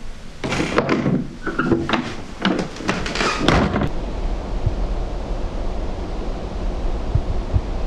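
A run of irregular rough knocks and rustles for a few seconds, then a steady low rumble of wind buffeting the microphone outdoors.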